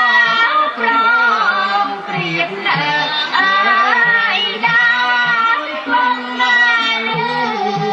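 Khmer traditional music for Apsara dance, with a sliding, wavering melody over a steady lower accompaniment.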